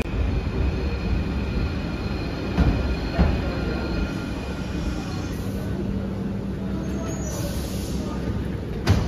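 Paris Métro line 5 train at the platform, a steady low rumble with faint high whining tones from the wheels and running gear. A sharp knock near the end.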